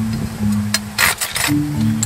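Background music with long held notes. Over it, about a second in, a short stroke of a Silky Pocketboy folding saw cutting into a piece of scrap wood.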